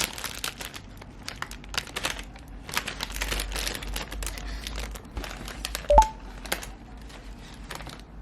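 Crinkling and clicking handling noises, with a short two-note electronic beep, rising in pitch, about six seconds in.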